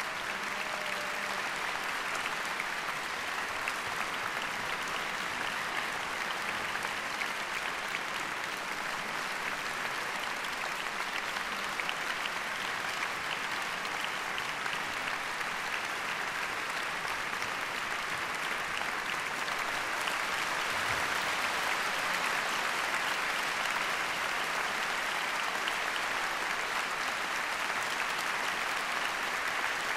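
Large concert-hall audience applauding: dense, even clapping with no break, growing a little louder about two-thirds of the way through.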